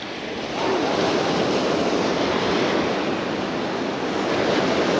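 Ocean surf washing onto the beach, with wind on the microphone. The rush swells up about half a second in and then holds steady.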